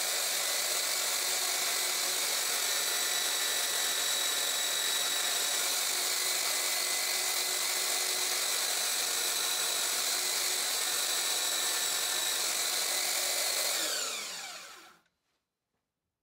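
Belt sander running steadily with a whine, a piano hammerhead held against the belt to take off weight. About fourteen seconds in it is switched off and winds down, its whine falling away to silence.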